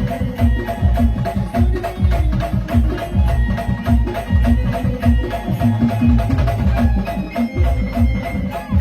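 Instrumental music with a steady, fast drum beat and repeated short melodic notes; no singing.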